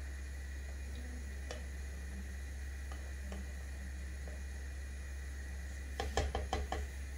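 Spoon stirring thick soup in a coated pot, with a couple of faint clicks, then a quick run of about six sharp knocks of the spoon against the pot near the end. A steady low hum runs underneath.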